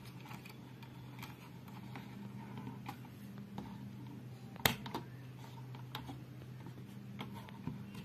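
Small plastic clicks and handling as a cooling fan's two-wire connector is pushed into its socket on an induction cooktop's circuit board, with one sharper click about halfway through.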